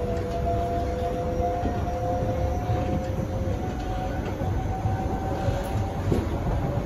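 SMRT C151B metro train running, heard from inside the car: a low rumble of the wheels on the track, with the electric traction drive whining in two steady tones that climb slightly in pitch.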